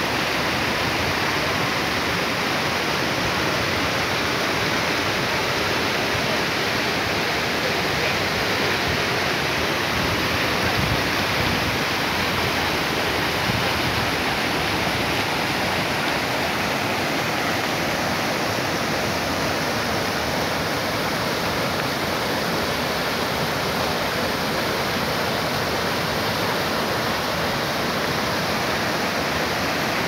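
Steady rush of a tall waterfall pouring onto rocks and into the stream below.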